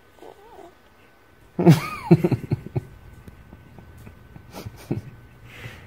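A newborn baby lets out a short, sudden vocal noise about two seconds in, its pitch rising and then falling, followed by a few softer short sounds.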